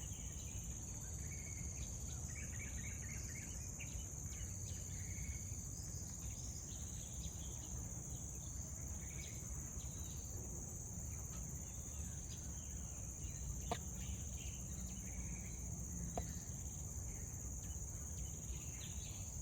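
Outdoor nature ambience: a steady high-pitched insect drone, with scattered short bird chirps and a brief trill about two and a half seconds in. Underneath is a low background rumble, and two sharp clicks come in the second half.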